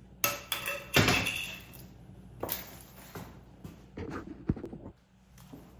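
Handling clatter of tools and metal: two loud clanks with a brief metallic ring about a quarter second and a second in, then a few lighter knocks and one sharp tap near the end.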